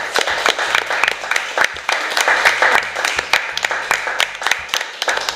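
A small group of people applauding: many overlapping hand claps.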